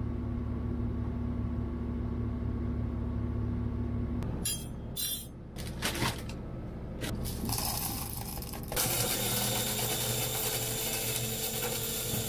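Light clicking and clattering of small items being handled, over a steady low hum. About nine seconds in, a loud, steady hiss starts.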